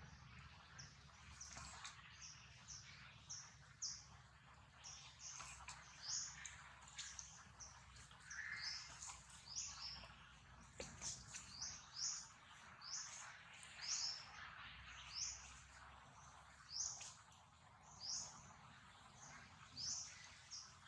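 Birds chirping faintly: short high chirps repeated about once a second, over a faint low background hum.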